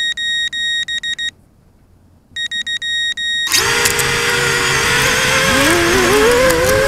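FPV quadcopter sitting on the ground, its beeper giving two quick strings of high-pitched beeps. About halfway through, its brushless motors and propellers spin up into a loud whine that wavers and climbs in pitch as it powers up for takeoff.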